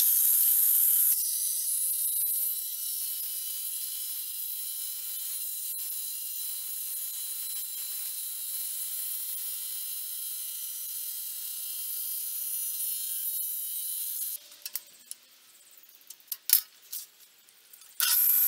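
Table saw running and ripping a piece of wood to width: a steady high whine with cutting noise, loudest in the first second. It stops about fourteen seconds in, there is a sharp knock, and the saw runs again near the end for a crosscut.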